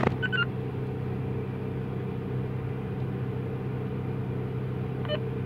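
Steady low hum of a car engine idling, heard from inside the cabin. Within the first half second come a few short high electronic beeps, the kind a handheld DMR radio gives after a transmission.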